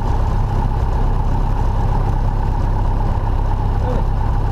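Cessna light aircraft's single piston engine and propeller running steadily at low taxi power, a constant drone heard from inside the cockpit.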